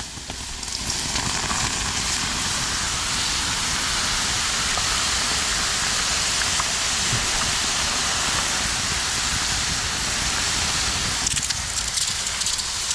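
Hot aluminum casting quenched in a bucket of water, sizzling and hissing steadily as the water boils off against the metal; the hiss starts abruptly.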